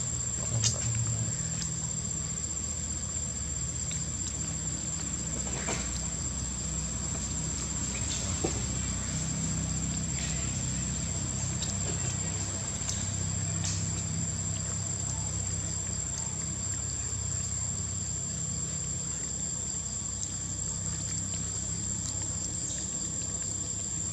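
Insects droning, a continuous high-pitched whine that holds steady throughout, over a low hum and a few faint clicks.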